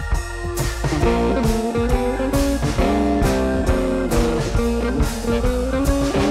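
Background music: a guitar-led tune over a drum beat, its notes stepping up and down.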